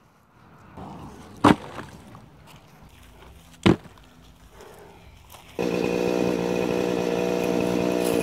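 Two sharp blows of an axe splitting a log, about two seconds apart. Then, about two-thirds of the way in, a two-stroke chainsaw cuts in abruptly and runs at a steady pitch.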